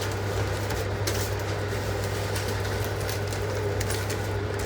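A steady low mechanical hum, unchanging throughout, with a fainter steady tone above it and a few faint clicks.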